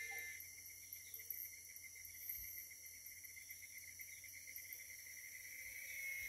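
Faint chorus of insects trilling steadily in several high-pitched layers, one with a fast pulsing trill.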